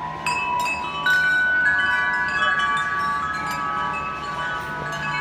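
Hanging metal tube wind chimes set ringing by hand, several tubes struck one after another so that their long, clear tones overlap and slowly fade.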